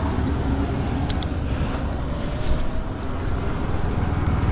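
Wind rushing over the microphone of a moving e-bike, a steady low rumble with a couple of faint ticks about a second in.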